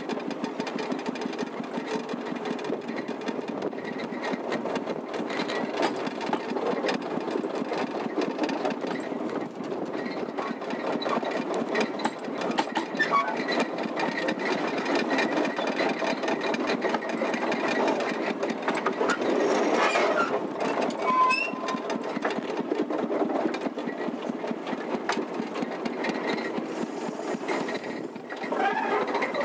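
Engine of a small Simplex narrow-gauge locomotive running with a fast, even clatter while the locomotive drives along the track, heard close up from the driver's seat.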